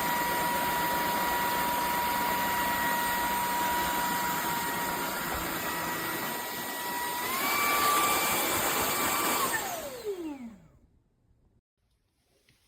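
Vacuum cleaner motor running with a steady high whine over a rushing hiss. About seven seconds in, the pitch steps up a little and it gets louder. Near the end it is switched off and winds down in a falling whine.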